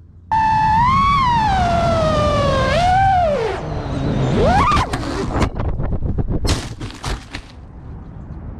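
FPV quadcopter's brushless motors whining, the pitch rising and falling with throttle, then dropping away about three seconds in. After a brief rising rev comes a run of sharp knocks and clatter as the drone crashes and tumbles.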